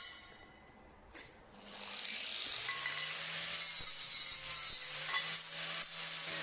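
Electric angle grinder started about a second and a half in, spinning up and grinding steel with a steady hiss until it is let off at the very end, its pitch starting to fall as it winds down.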